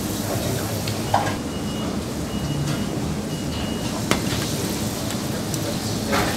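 Commercial kitchen sounds: a steady hiss of sizzling over a low background hum, with a few sharp metallic clinks and three short high-pitched beeps in quick succession in the first half.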